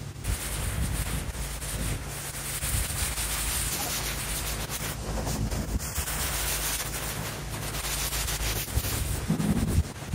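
Pressure washer jet blasting water onto wet tarmac and paving slabs: a steady hiss.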